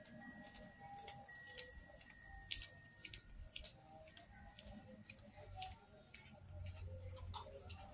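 Faint night ambience: night insects trilling steadily at a high pitch, with scattered light clicks.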